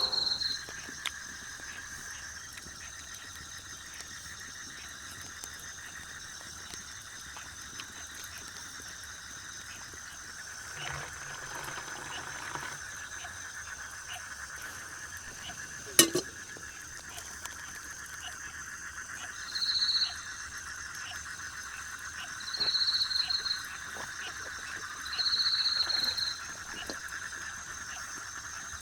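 Evening chorus of frogs and insects calling steadily by a river. In the second half a higher trilling call sounds three times, each about a second long, and there is a single sharp click about two-thirds of the way through.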